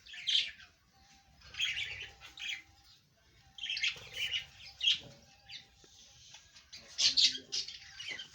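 Pet parrot calling in several short bursts of chirps and squawks.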